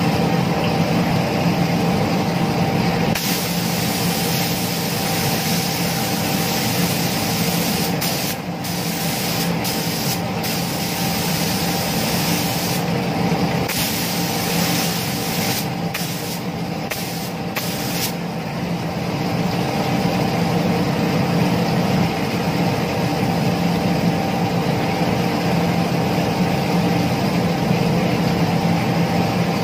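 Gravity-feed air spray gun hissing in repeated passes as clear coat is sprayed onto a motorcycle body panel, over a steady motor hum. The hiss breaks off briefly several times in the middle, between passes.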